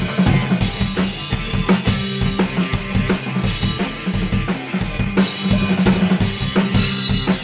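A drum kit and an electric guitar playing a rock groove together: steady kick and snare hits with cymbals over held guitar chords.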